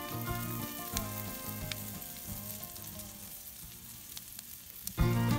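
Food frying and sizzling over a campfire, a fine crackle throughout. Background music with a repeating low beat fades down through the middle and comes back loudly just before the end.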